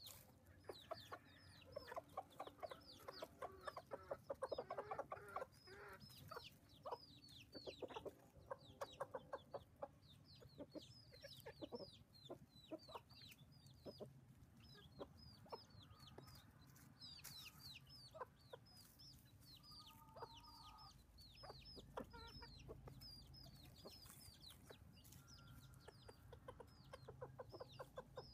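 Chicks peeping constantly in quick, high, falling peeps, over soft, rapid clucking from adult chickens that is thickest in the first few seconds and again around eight to ten seconds in.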